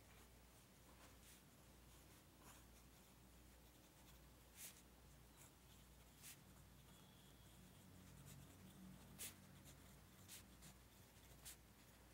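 Faint scratching of a pen writing on paper, with a handful of short, sharp strokes over a low steady room hum.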